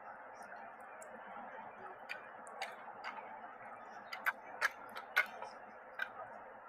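Scattered sharp slaps and clicks of hands striking drill rifles as a rank of cadets performs the manual of arms, clustered about two-thirds of the way in, over a steady background hiss.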